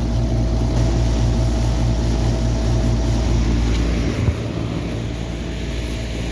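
Steady low machine hum of a running rooftop air-conditioning unit. About four seconds in the hum drops away, with a single knock.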